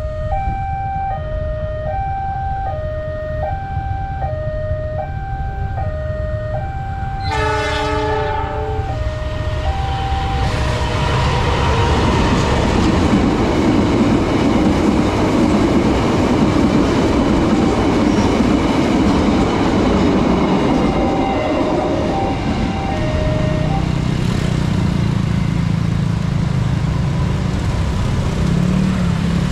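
Railway level-crossing warning siren alternating between two notes, E-flat and G, repeating steadily. About seven seconds in, a train horn sounds for about a second. Then the train passes with loud rumbling and rattling wheel noise.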